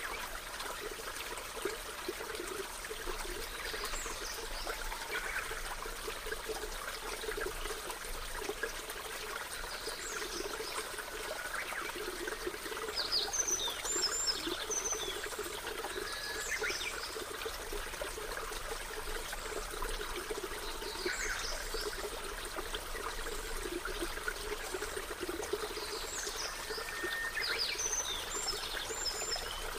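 A stream running steadily, with short high bird chirps and whistles every few seconds.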